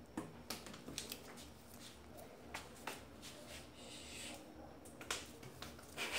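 Light, sharp taps and clacks at irregular intervals, about eight in all: fabric-covered cardboard rings thrown in a ring toss landing on the table, plastic bottles and floor.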